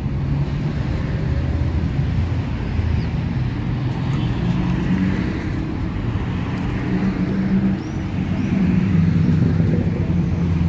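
City street traffic: car engines running steadily close by, with one vehicle passing about halfway through.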